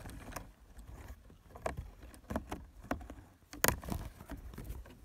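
Handling noise from fingers rubbing and knocking against a hand-held phone close to its microphone: irregular scrapes and knocks, the loudest a little past halfway.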